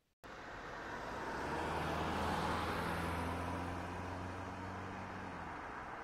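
A toy remote-control excavator's small electric motors and plastic gears whir steadily with a low hum as the arm and upper body move. The sound starts abruptly, grows louder toward the middle, then eases slightly.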